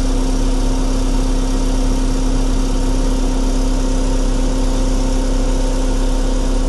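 JCB backhoe loader's diesel engine idling steadily, heard from inside the cab as an unchanging drone with a deep rumble.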